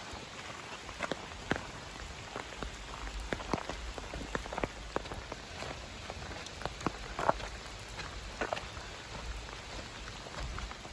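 Steady light rain with individual raindrops tapping irregularly, several a second, over a soft continuous patter.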